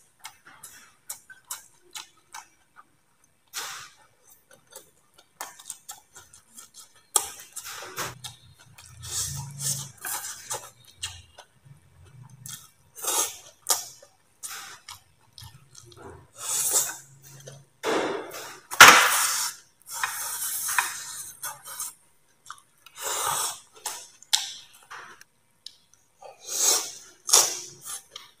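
Close-up eating sounds: a man chewing rice vermicelli and steamed eel, with irregular wet lip smacks and slurps. Occasional light clinks of chopsticks against the dishes, with a sharp loud slurp or smack about two-thirds of the way through.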